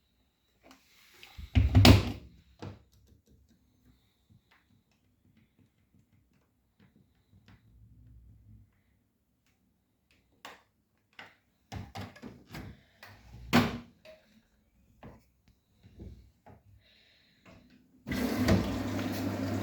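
Knocks and clicks of an Arçelik 9120M front-loading washing machine being handled, the loudest a single clunk about two seconds in. About eighteen seconds in the machine starts drawing water: a steady rushing with a low hum as the wash cycle begins filling.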